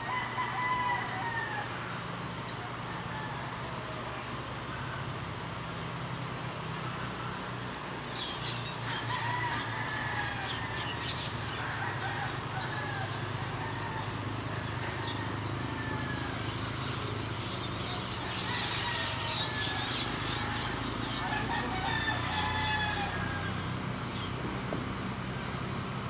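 Roosters crowing again and again, with small birds chirping and a steady low hum underneath.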